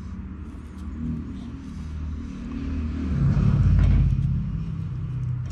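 A motor vehicle engine humming past, growing louder to a peak about four seconds in and then easing off.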